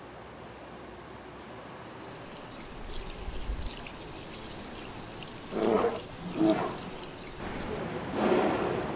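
Water from a stone fountain's spout running and splashing into its basin, a steady rushing trickle. A few short, louder sounds stand out about six and eight seconds in.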